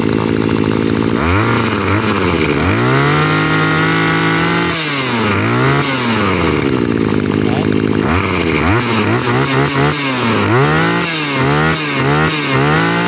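Maruyama brush cutter's small two-stroke engine running and revved by hand at the throttle. It climbs to a high speed about a second in and holds there for a couple of seconds, drops back, then is blipped quickly several times toward the end. The firing is crisp, the sign of an engine in good running order.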